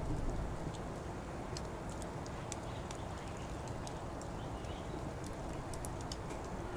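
Wood fire burning in a Coleman Fire Disk fire pit, crackling with irregular sharp pops over a steady low rumble.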